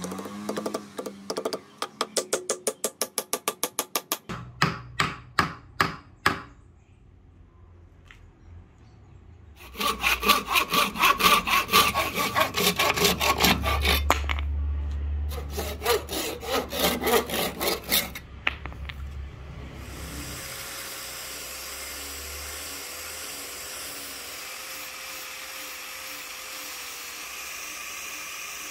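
A hammer rapidly tapping a wooden wedge into the axe head's eye, ending in a few harder blows. After a short pause, a Japanese pull saw cuts through the hardwood handle end in rhythmic strokes. Near the end, an angle grinder fitted with a sanding pad runs with a steady hiss as it sands the handle.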